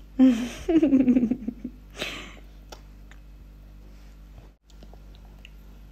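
A baby babbling and vocalizing loudly with her mouth full for about a second and a half, then a short breathy sound. After that come only faint small mouth clicks as she chews finger food.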